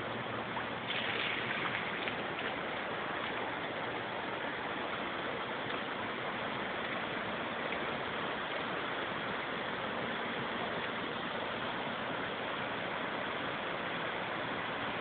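Shallow mountain stream rushing over rocks and gravel, a steady rush of water that swells briefly about a second in.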